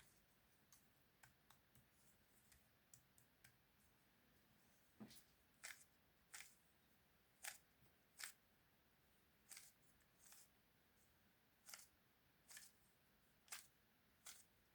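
Sharp plastic clicks from a 3×3 puzzle cube being handled. A few light clicks come first, then from about a third of the way in louder clicks arrive roughly once a second.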